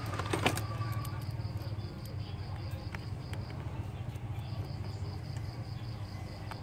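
Small clicks and taps of hands and a small screwdriver working on an opened smartphone's frame, the loudest about half a second in. Under them run a steady low hum and a regular high-pitched pulsing, several pulses a second, that pauses briefly in the middle.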